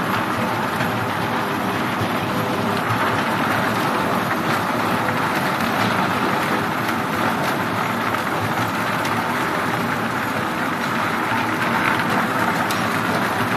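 Log debarking machine running: a load of thin branches tumbling over the rotating toothed rollers in the steel trough, knocking against each other and the metal in a steady, dense clatter as the bark is stripped off, with a faint steady motor hum underneath.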